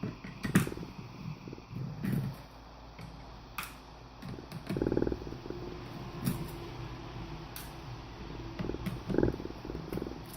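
Laptop disassembly handling: scattered sharp clicks and short rasping stretches as small screws are turned out of the hard drive bay and parts are handled.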